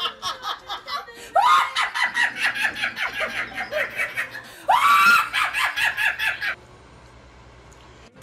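A woman laughing hard in rapid, high-pitched pulses, with two shrieks that rise sharply in pitch, about a second and a half in and near five seconds in. The laughter stops suddenly about six and a half seconds in, leaving a faint low hum.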